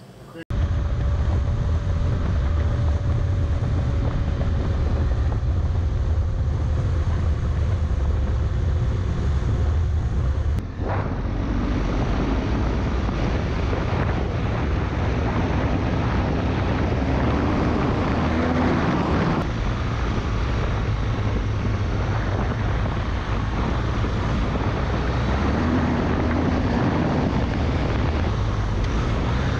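Motorcycle running along a gravel trail, its engine note steady under heavy wind rush on the microphone. The sound cuts in abruptly about half a second in and jumps briefly at an edit about ten and a half seconds in.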